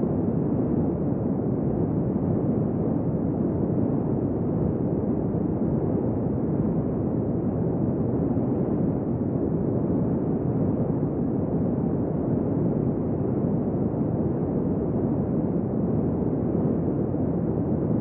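Desert wind blowing steadily: a dull, low rush with no gusts or whistling standing out.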